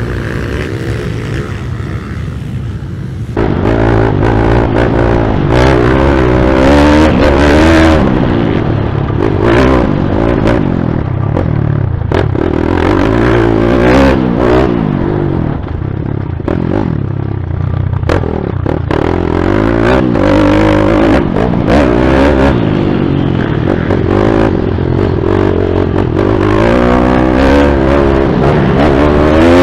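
Pit bikes running, heard from trackside, then about three seconds in a sudden change to a loud, close pit bike engine revving up and falling back over and over as it is ridden on a dirt motocross track, with knocks from the bike over the bumps.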